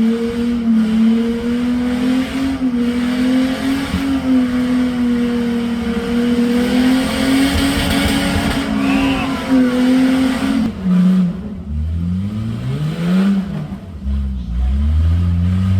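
Toyota 4Runner rock buggy's engine held at steady high revs under load, then, about eleven seconds in, dropping and revving up and down in repeated throttle blips.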